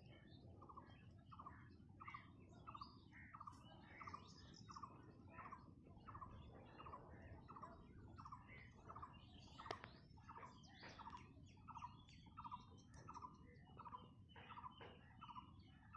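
Faint bird call: one short note repeated steadily, about two a second, over a low background hum.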